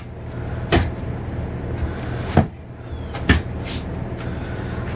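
Motorhome dinette table and bed panels being handled: three sharp wooden knocks and clunks, plus a short hiss after the last, over a steady low hum.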